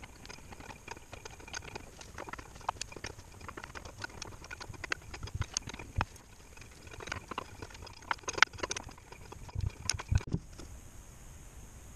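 Irregular metallic clicks and knocks as a driveshaft end is handled and fitted at a differential's pinion flange, with a pair of heavier thuds about ten seconds in.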